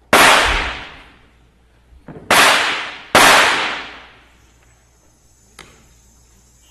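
Three loud, sharp cracks, the first just after the start and the other two close together about two seconds later, each ringing away for about a second in a reverberant hall. A faint click follows near the end.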